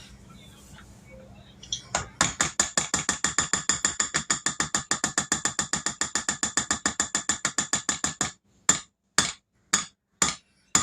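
Rapid, even mechanical ratchet-like clicking, about ten clicks a second. It starts about two seconds in and breaks off near eight seconds into slower single clicks, about two a second.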